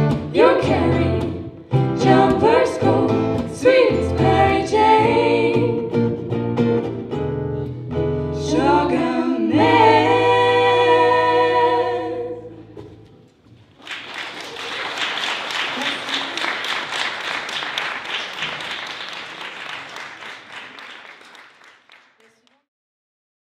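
Three women's voices singing in harmony over an acoustic guitar, the song closing on a long held chord about twelve seconds in. Then about eight seconds of audience applause that dies away.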